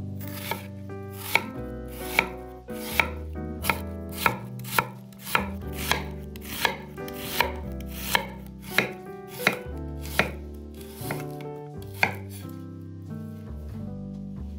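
Kitchen knife slicing an onion into strips on a wooden cutting board: a steady series of sharp chops, about one every 0.7 s, stopping a couple of seconds before the end. Soft background music plays underneath.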